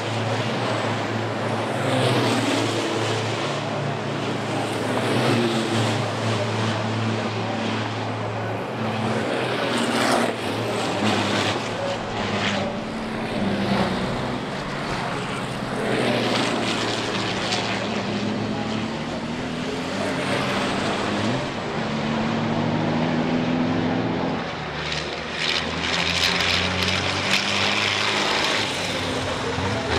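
Racing trucks' turbodiesel engines running hard on track, their note rising and falling repeatedly as they accelerate and lift through the corners.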